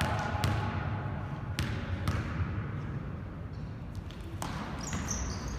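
A basketball bouncing sharply on a gym's hardwood floor a few times as a player dribbles before a free throw, over the low hum of a gymnasium.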